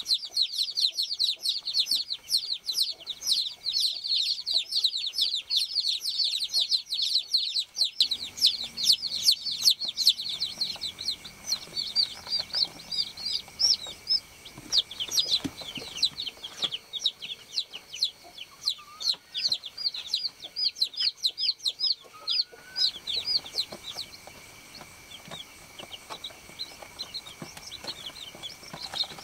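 A flock of baby chicks peeping: a dense stream of short, high chirps, several overlapping at once, that thins to fewer, more separate peeps after about eight seconds.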